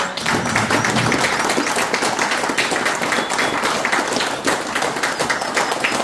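A room full of people clapping steadily: a round of applause.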